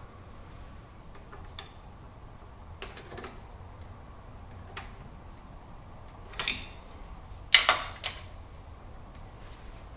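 Light metallic clicks and knocks of an adjustable wrench working the collet nut on an Aciera F1 milling machine's spindle. A louder metal knock comes at about six and a half seconds, and a sharper pair a second later.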